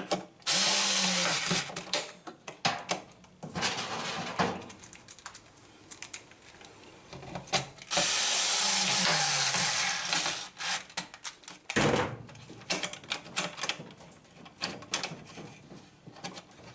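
Cordless screwdriver running in a few bursts of a second or two, one winding down at the end, between clicks and knocks of metal and plastic parts being handled during reassembly of a washing machine's spin mechanism.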